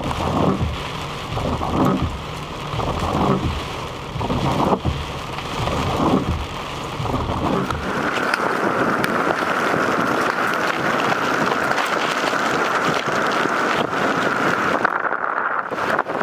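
Heavy hurricane rain and wind hitting a car's windshield and body, heard from inside the cabin. In the first half, regular low thuds come about every second and a half; after that it settles into a steady, dense hiss.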